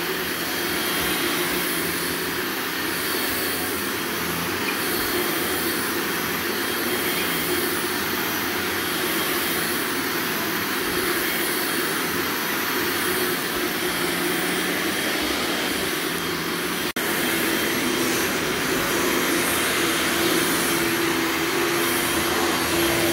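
Carpet-cleaning extraction machine running steadily with a constant hum. There is a brief dropout about seventeen seconds in, after which the hum is a little louder.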